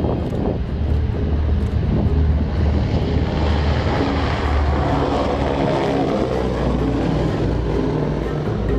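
Jet aircraft flying past: a loud, steady rush of jet noise with a sweeping whoosh that slides down in pitch about halfway through as it passes.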